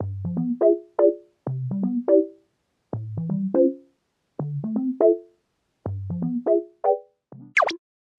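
Background music on keyboard: a short rising run of notes ending on a held chord, repeated about six times at an even pace, with a quick falling sweep near the end.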